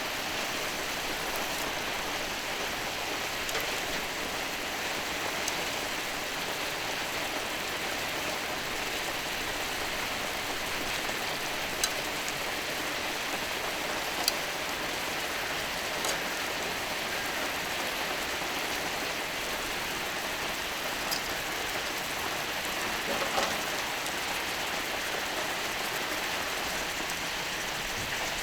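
Skirt steak sizzling steadily on a hot iron griddle, with a few sharp pops of spitting fat.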